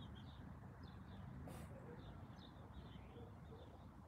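Faint bird chirps, short and scattered, over a low steady outdoor rumble.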